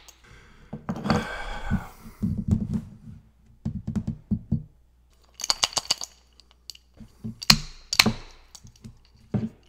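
A wooden spark-plug puzzle box shaken and tilted in the hands: its sliding metal rods knock about inside in irregular clusters of clicks and thunks, with sharper clicks later on. The metallic click of one rod striking hidden metal inside is the clue to the puzzle.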